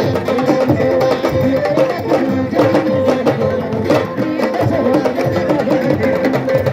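Music with hand-drum percussion over sustained pitched notes, at a steady level throughout.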